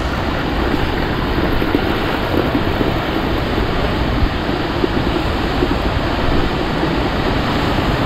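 A strong-flowing waterfall making a loud, steady rush of falling water that holds even throughout.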